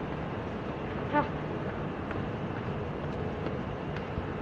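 Steady rumbling background noise of the metro with a constant low hum. About a second in there is one short pitched chirp, and a click at the very end.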